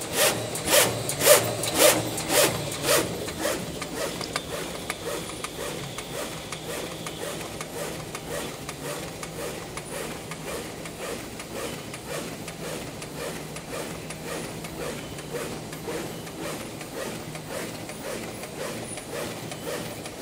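Roll-fed die-cutting machine running, cutting corrugated paper cup sleeves with a regular stroke about twice a second over a steady low hum. The strokes are louder for the first three seconds.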